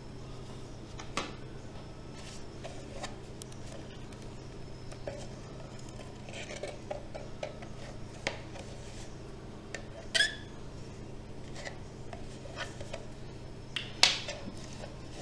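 Cut pieces of a stiff plastic detergent container being handled, making scattered light clicks and rubbing sounds. There is a short squeaky scrape about ten seconds in and a sharp knock near the end, the loudest sound. A steady low hum runs underneath.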